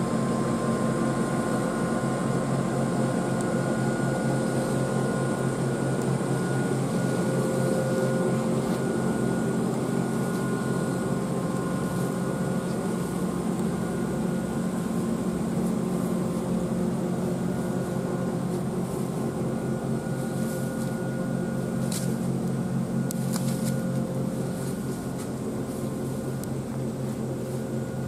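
JNR EF63 electric locomotive standing with its auxiliary machinery running: a steady mechanical hum made of several held tones, unchanging throughout, with a few faint clicks about two-thirds of the way in.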